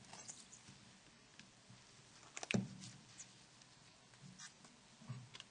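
Faint clicks and rubbing of hands handling the Nokia 9300i phone while protective plastic film goes on its window and screen, with one sharper click about two and a half seconds in.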